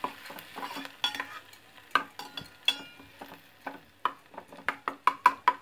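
Metal spoon scraping and clinking against a stainless steel pan, stirring ginger, garlic and green chillies frying in ghee, with a light sizzle underneath. The strokes are irregular, with a quick run of several sharper clinks near the end.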